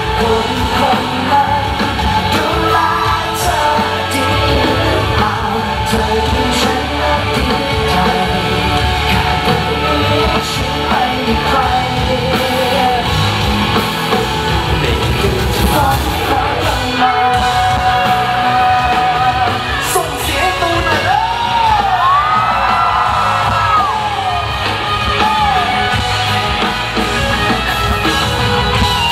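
Live Thai pop-rock band playing loud, with sung vocals gliding up and down and the crowd yelling and singing along, in a large hall.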